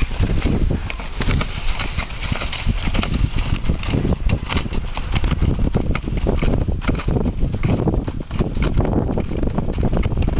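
Dog sled moving over packed snow behind a trotting team of sled dogs: a fast, continuous clattering and scraping from the sled and the dogs' footfalls over a steady low rumble.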